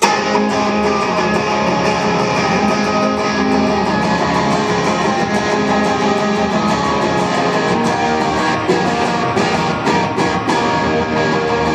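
Electric guitar strummed in a steady, loud chord intro through the venue's amplification.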